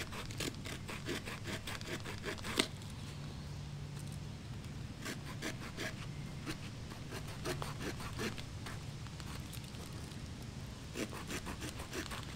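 A small folding saw cutting a stop cut into a thumb-thick green stick, with short quick strokes of about three or four a second. It saws in three runs with brief pauses between them.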